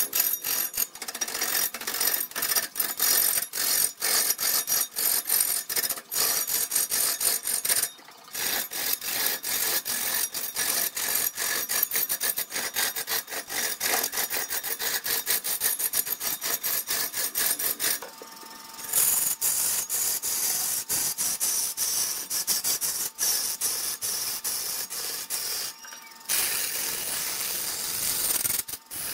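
Turning tool scraping and cutting wood as it spins on a wood lathe: a dense, rough scraping with rapid ticking chatter, broken by short pauses about 8, 18 and 26 seconds in.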